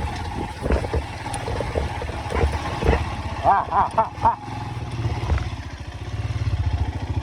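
Motorcycle engine running slowly with an even low pulse, with some clattering knocks. A few short, high arched calls come about halfway through.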